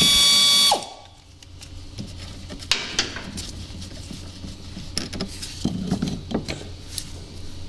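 An air ratchet whines briefly at the start, spinning the nut off a golf cart's lower shock mount. After that come scattered small metallic clicks and rattles as the nut, bolt and rubber bushings are worked off by hand.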